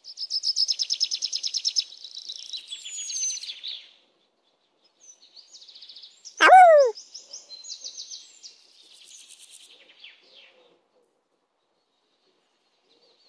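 Small birds chirping in rapid, high-pitched trills, with one loud, short call that falls in pitch about six and a half seconds in.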